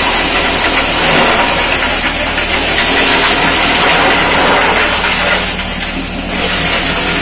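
Chaff cutter chopping fodder stalks for silage, a loud steady rush of cutting and blowing over the low hum of its motor. The chopping noise eases briefly about five and a half seconds in, then comes back.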